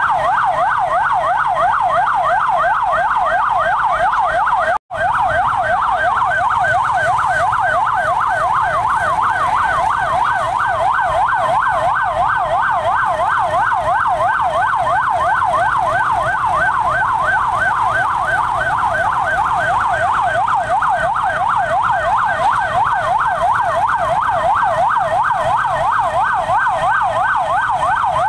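Emergency vehicle siren sounding a fast yelp: a loud wail sweeping rapidly up and down at an even rate without a break. It cuts out for a split second about five seconds in.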